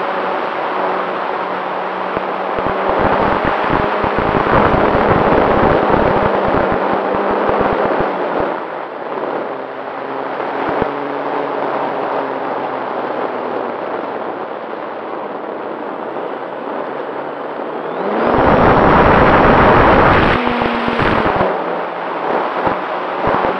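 Radio-controlled model airplane's motor and propeller heard from a camera mounted on the plane, with heavy wind buffeting and crackle on the microphone. About eighteen seconds in, the motor's pitch rises and it gets louder for about three seconds, then eases off.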